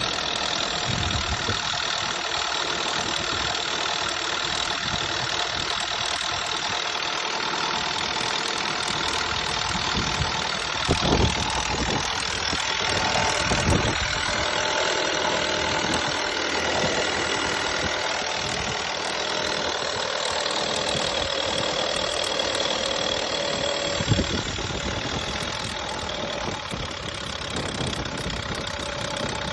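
Volkswagen Golf engine running steadily just after start-up, making an abnormal noise, with a few louder knocks about a third of the way in, just before the halfway point, and again past the three-quarter mark.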